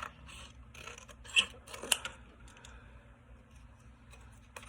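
Scissors snipping through cardboard: a run of short cuts in the first two seconds, the loudest about a second and a half and two seconds in, then a few faint rustles and one more snip near the end.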